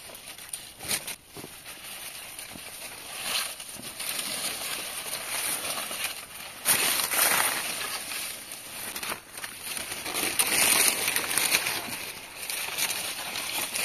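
Dry corn leaves and stalks rustling and crackling as people push through a cornfield on foot, with footsteps on the dirt path. It is loudest about seven seconds in and again around eleven seconds.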